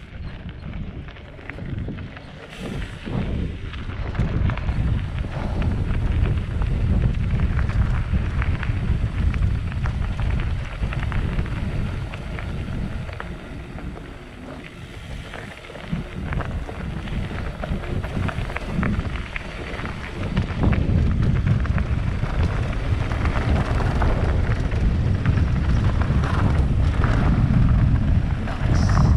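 Wind buffeting an action camera's microphone: a heavy, uneven rumble that swells and eases, with scattered light crackles over it.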